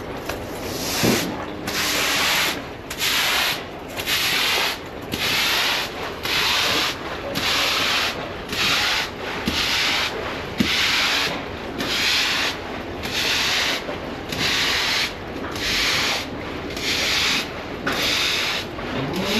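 Broom sweeping water out across the flooded barn floor: a steady rhythm of scraping strokes, a little more than one a second.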